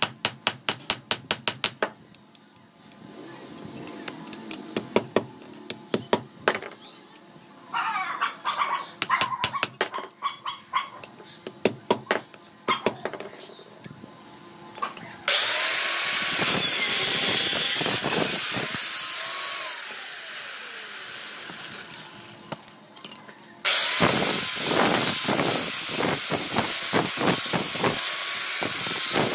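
Steel tongs clinking and rattling as they are handled, then an angle grinder grinding steel in two long, loud runs, the second starting after a short pause about two-thirds of the way through.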